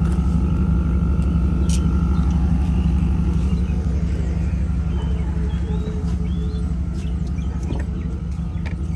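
A vehicle engine running steadily, a low continuous rumble.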